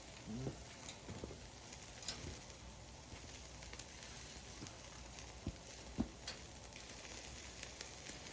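Meat sizzling as it grills over an oak fire, a steady hiss with a few scattered pops and crackles, the sharpest about six seconds in.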